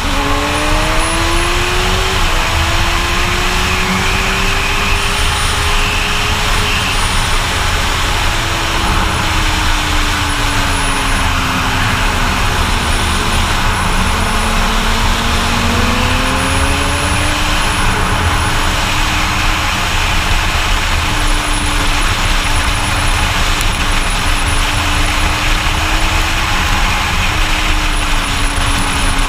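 Heavy wind rushing over the camera microphone at speed, with a Suzuki GSX-R1000's inline-four engine note underneath, rising and falling in pitch several times as the rider rolls on and off the throttle.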